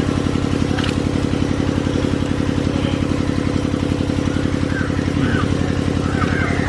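Small engine running steadily at constant speed, the engine of a water pump set pumping water out of the pond.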